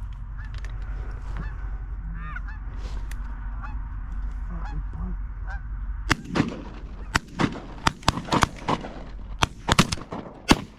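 Canada geese honking as a flock comes in; about six seconds in, several hunters open up with shotguns, a rapid string of a dozen or so blasts over the last five seconds, with goose calls still heard between the shots.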